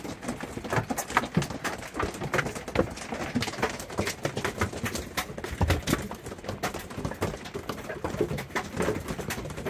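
Hail pelting the roof and walls of a truck camper: a loud, dense, irregular clatter of many hard strikes.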